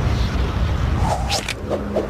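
Cartoon action sound effects: a continuous deep rumble with a couple of quick whooshing sweeps, and a low held tone coming in near the end.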